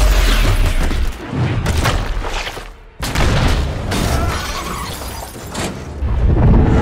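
Action-film sound effects: heavy booms and smashing, crashing impacts with debris. The sound dips almost to quiet just before three seconds in, then a sudden loud crash follows.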